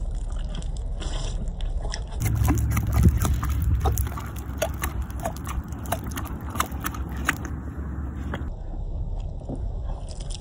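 Wild mustang chewing a mouthful of wet feed mash with its mouth open: a run of wet smacking clicks, a few each second. A low rumble rises under it about two to four seconds in.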